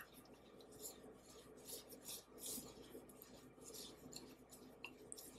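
Faint, irregular rubbing and scraping of gloved fingers crumbling a dry spice blend in a bowl, a few strokes a second.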